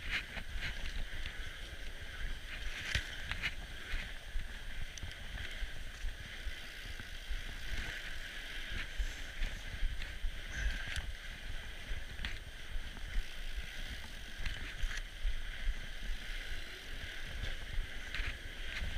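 Fat bike's wide tyres rolling over packed snow: a steady crunching hiss with many small clicks and rattles from the bike. A low wind rumble sits on the handlebar-mounted mic.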